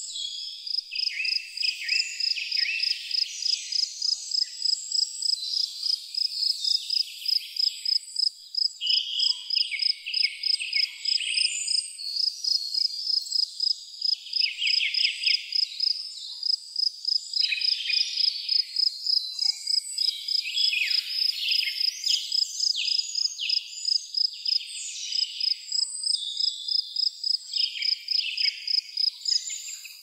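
Crickets chirping: one steady, fast-pulsing high chirp runs throughout, with other high insect trills rising and falling over it.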